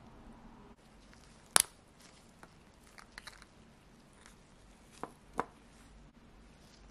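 Small sharp clicks and ticks of a vintage Rolex Air-King's steel case and plexiglass crystal handled in gloved fingers. One crisp click about one and a half seconds in is the loudest, with a few faint ticks in the middle and two more clicks near the end.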